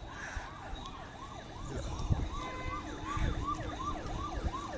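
Electronic siren on a fast yelp, its pitch sweeping up and down close to three times a second, with a few low thumps underneath.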